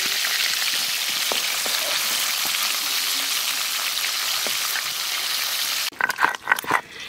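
Fish pieces sizzling steadily as they shallow-fry in oil in an iron wok. About six seconds in, the sizzle cuts off and gives way to a run of rough scraping strokes of a hand-held stone grinding green paste on a grinding slab.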